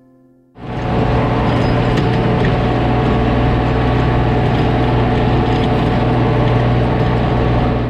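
Tractor engine running steadily under load, driving a rototiller through the barn's bedding pack. It starts suddenly about half a second in and stops just before the end.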